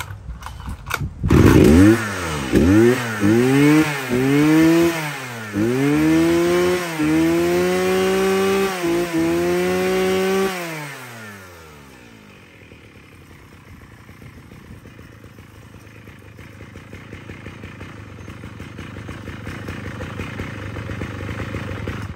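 Mitsubishi 52 cc two-stroke brush cutter engine running freshly started, revved up in a series of short throttle blips, then held at high revs for several seconds. About eleven seconds in it drops back to a quieter steady idle.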